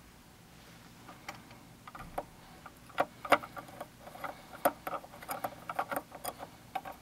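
Magnetized screwdriver driving a small screw into the tone-arm mount of a Technics SL-1200 turntable: a run of irregular light metal clicks and ticks that starts about a second in and grows busier and louder.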